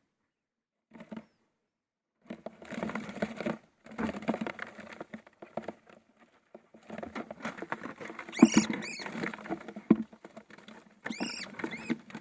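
Small wild birds scrabbling and fluttering against the inside of a bucket as one is caught by hand, with sharp chirping calls about eight seconds in and a quick run of them near the end.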